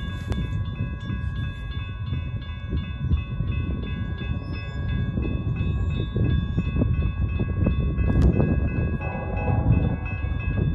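Railroad grade-crossing bell ringing in a fast, even, steady beat, with wind rumbling on the microphone.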